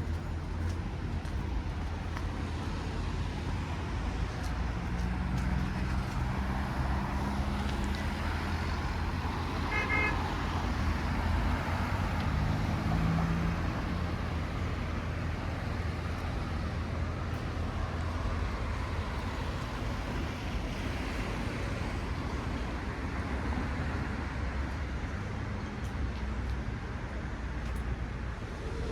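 Town street traffic: car engines running and passing over a steady low rumble, with a brief pitched toot about ten seconds in.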